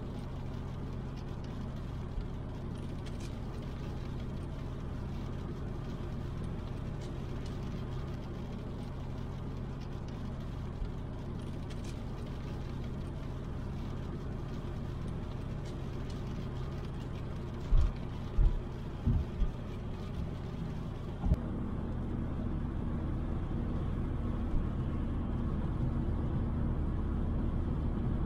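Car driving along a motorway, heard from inside the cabin: a steady low hum of engine and road noise. A handful of short, loud low thumps come about two-thirds of the way through, after which the rumble is slightly heavier.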